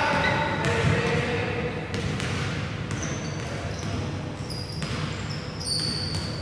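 Rubber dodgeballs bouncing now and then on a wooden sports-hall floor, a handful of separate knocks echoing in the large hall, with short high shoe squeaks on the court in the second half and some indistinct voices near the start.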